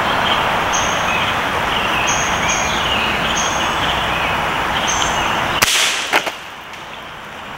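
A steady rushing hiss with small bird chirps over it. About five and a half seconds in comes a sharp crack as a .22 pellet from an Umarex Syrix air rifle hits a plastic water bottle, then a smaller knock half a second later.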